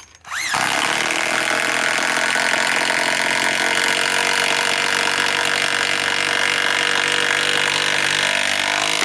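DeWalt DCF891 cordless mid-torque impact wrench, on a 1.7 Ah Powerstack battery, spinning up with a rising whine and then hammering steadily on a 10-inch lag screw. It stops abruptly just before the end.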